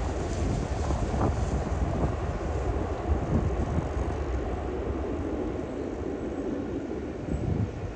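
Airliner's engines rumbling steadily, slowly fading toward the end.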